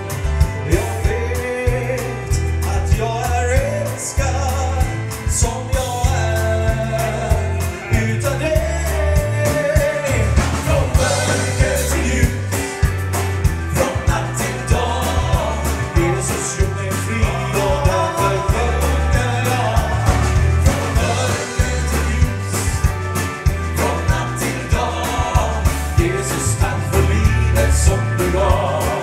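Live gospel-country band playing a song: a singing voice over drums and low bass notes with a steady beat.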